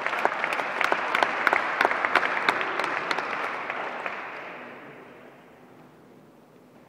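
A small audience applauding, with individual claps standing out, dying away about four to five seconds in.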